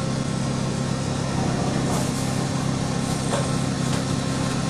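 Multi-purpose stainless-steel chopper/pulverizer driven by a 3 HP electric motor, running steadily: an even whirring rush over a steady low hum.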